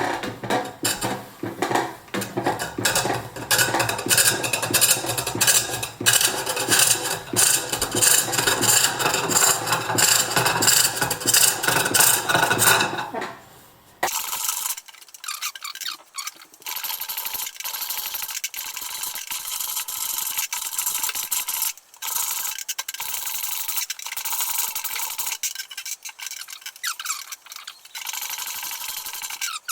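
Green wood bowl being turned on a treadle-driven pole lathe: a steady run of scraping cuts as the tool bites on each spin of the blank. About halfway through the sound dips briefly, then carries on thinner, with its low end gone.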